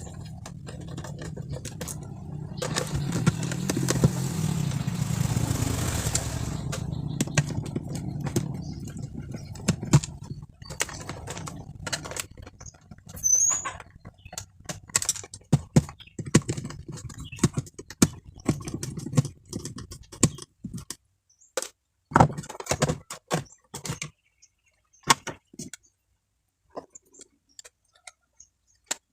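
A motor vehicle running close by, its sound swelling and fading over the first several seconds, followed by many irregular clicks and knocks of small hard objects being handled.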